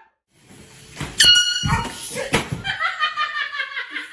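A person's sharp, high-pitched scream about a second in, then a couple of thumps, then a long, high, wavering cry: a startled reaction to an air-horn prank.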